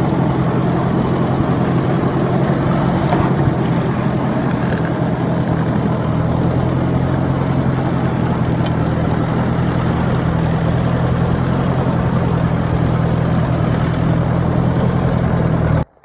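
Ford 860 tractor engine running steadily at a constant speed, pushing snow with the rear 3-point hitch implement. It cuts off suddenly near the end.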